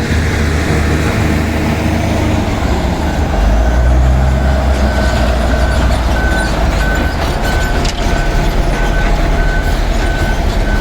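Bulldozer's diesel engine running loud and low, its note dropping and deepening about a third of the way in. From about halfway, a reversing alarm beeps about twice a second.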